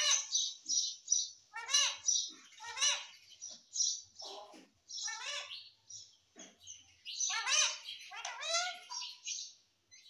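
Indian ringneck parakeet calling and chattering: a rapid run of short, high calls in bursts with brief gaps, thinning out in the middle and picking up again from about seven seconds in.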